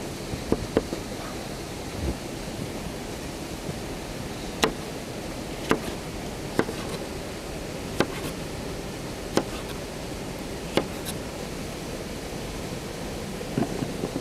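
Food-preparation sounds: a steady rushing hiss with sharp knocks about once a second through the middle.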